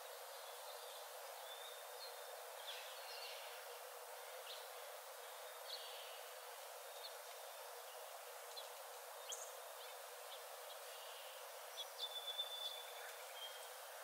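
Small forest birds chirping and whistling now and then over a steady background hiss, with a quick run of louder chirps near the end.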